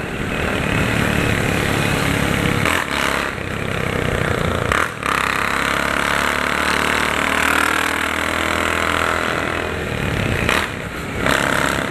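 Honda CG 150 Titan's single-cylinder four-stroke engine running loud through a short straight-through exhaust, a Biz pipe cut and welded to a 150 bend, while the bike is ridden. The engine sound dips briefly a few times.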